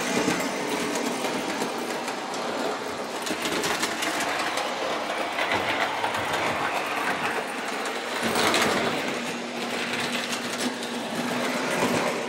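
Lionel O-gauge toy train running on three-rail track: the electric motor whirs and the gears and wheels rattle and clatter steadily. It gets briefly louder about eight seconds in.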